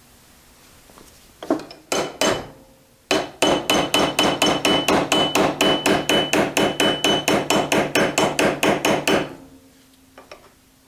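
Hammer blows on steel driving a pin out of a milling machine's flat-belt tension idler. Three separate blows, then a fast, even run of about five blows a second for some six seconds, with a high metallic ring.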